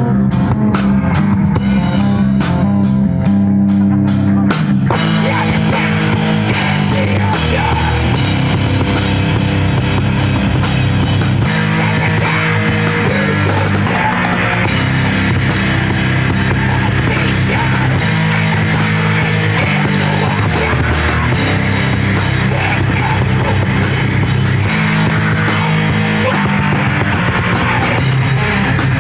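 A live heavy metal band playing loud, with guitars and a drum kit. For about the first five seconds, evenly spaced drum hits drive the riff, and then the full band comes in denser.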